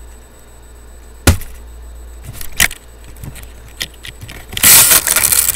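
Handling noise on a laptop's built-in microphone: a sharp knock about a second in, a few lighter taps and clicks, then a loud scraping rustle near the end.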